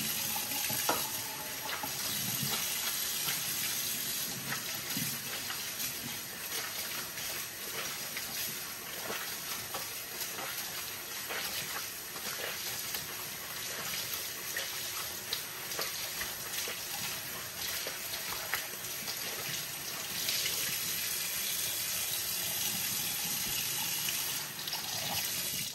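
Water running from a tap into a sink while a cloth rag is washed by hand, with small splashes and knocks. The flow stops suddenly at the end.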